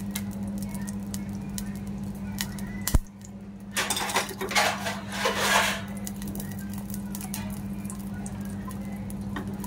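Metal pan tongs clinking and scraping on the rim of a small steel pan for about two seconds, a little after a single sharp knock, over a steady low hum.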